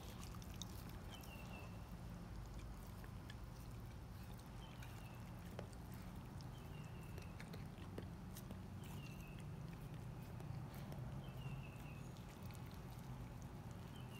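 A dog mouthing, licking and chewing at a raw whole lake herring held in a hand: scattered faint wet clicks and smacks. Under them runs a steady low hum, and a short high chirp repeats every second or two.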